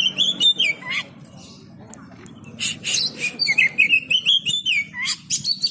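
Oriental magpie-robin (kacer) singing rapid, varied whistled phrases in two bouts, the second starting after a pause of about a second and a half.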